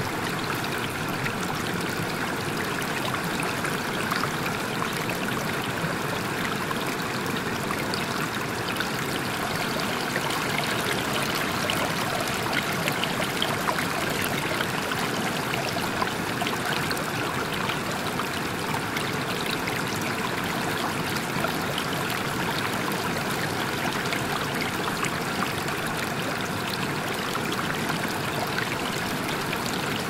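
Running water rushing steadily and evenly, a continuous water noise with no breaks or changes.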